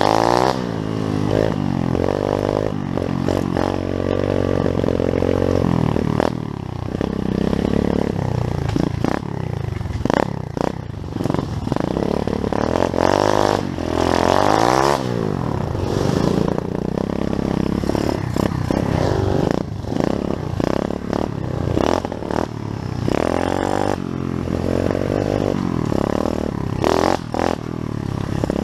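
Pit bike's small single-cylinder engine revving up and down again and again while being ridden over rough ground, with clattering knocks from the bike over bumps.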